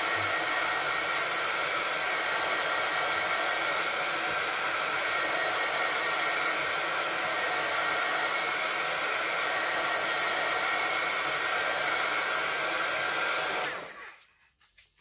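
Handheld craft heat tool (embossing heat gun) blowing hot air, drying wet Distress Oxide ink on a metal piece. It is a steady rush of air with a faint whine, switched off about a second before the end.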